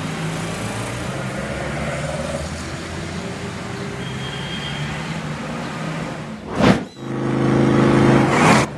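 Road traffic and car engine hum played back over loudspeakers in a hall, steady at first; about two-thirds through there is a sharp break, then a louder engine drone until another abrupt cut near the end.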